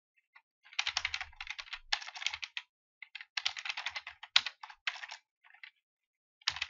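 Fast typing on a computer keyboard in runs of rapid keystrokes, with short pauses between them and a gap of about a second near the end.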